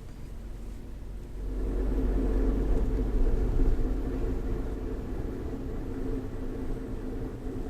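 Vehicle running with a low, steady engine and road rumble that gets louder about a second and a half in.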